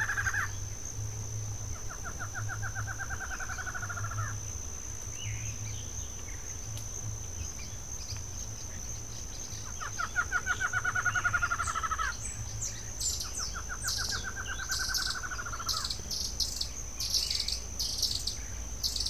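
Wild birds calling: a rapid pulsed trill of about two seconds, given three times, over a steady high-pitched insect buzz, with scattered short high chirps in the second half.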